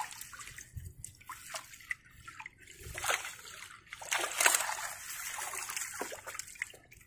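Lake water splashing and trickling in irregular bursts as a long-handled dip net is worked through a net fish trap and lifted out.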